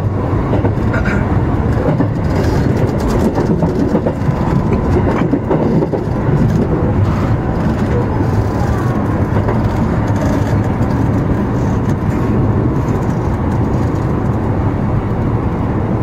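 JR West 221 series electric multiple unit running, heard from inside at the front of the train: a steady rumble of wheels on rail, with occasional faint clicks as it crosses pointwork into the station.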